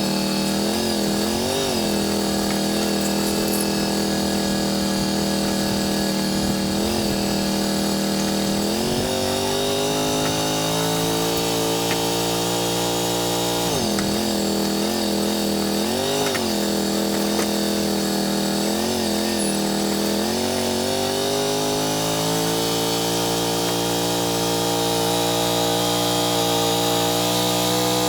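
Wood-Mizer LT35 portable band sawmill running with its band blade sawing through a dry cottonwood log. The engine's pitch sags and recovers several times as it takes the load, then holds steady and rises slightly near the end.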